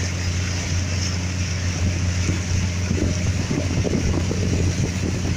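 A boat's engine running with a steady low drone, under wind on the microphone and water rushing past the hull. The wind and water noise gets rougher and choppier from about halfway through.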